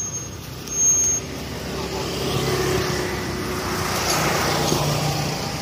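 A road vehicle passing, its noise building over a few seconds and easing near the end, with a brief louder noise about a second in.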